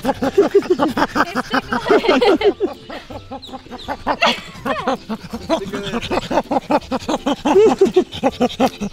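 Young chimpanzee's rapid, rhythmic play-panting laughter while being tickled, several short pants a second, easing briefly about three seconds in before picking up again.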